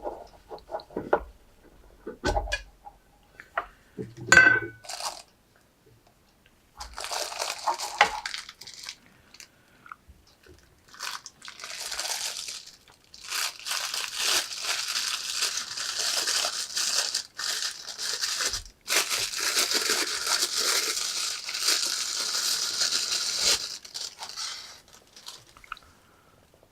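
Watch packaging being handled and unwrapped: a few knocks and clicks in the first seconds, then long stretches of crinkling and rustling from about seven seconds in until near the end.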